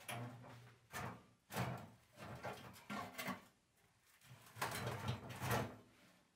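Sheet-metal tent stove being shifted and slid into position by hand: a series of short metal scrapes and knocks. The longest and loudest scrape comes about a second before the end.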